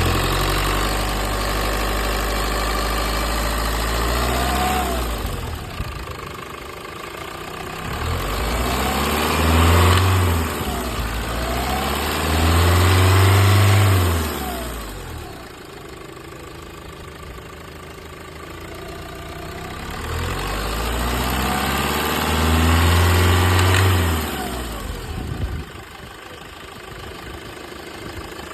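Renault Mégane III's 1.9 dCi four-cylinder turbodiesel running, revved up and let fall back toward idle several times, its pitch rising and falling with each rev. The owner hears a strange noise in it that he cannot identify.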